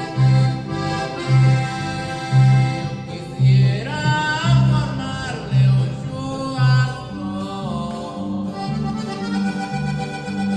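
Accordion playing a melody in a regional Mexican style over an electric bass line that pulses in even, regular notes.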